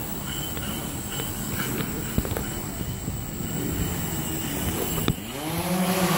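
Aerigon multirotor cinema drone's electric motors and propellers spinning up about five seconds in, rising quickly in pitch and settling into a steady hum as the drone lifts off. Before that, a low background rumble with a few scattered clicks.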